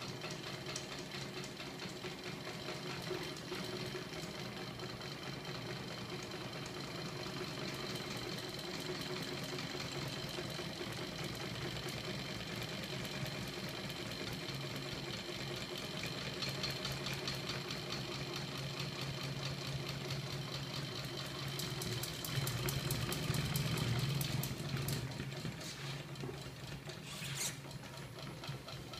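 A small electric motor driving a homemade magnet-coupled crankshaft rig with heavy spinning flywheel discs, running with a steady mechanical whir and fast ticking. It gets louder about three quarters of the way through, then quietens near the end.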